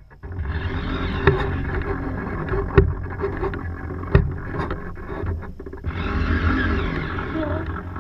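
Wind buffeting the action-camera microphone on a racing sailboat under way, with water rushing along the hull and a few sharp knocks from the boat and its gear.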